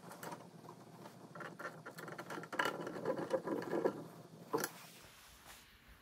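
Screwdriver working a terminal screw on a switching power supply's screw terminal block while a wire lead is fastened: faint, irregular scraping and small clicks, with one sharper click about four and a half seconds in, stopping about five seconds in.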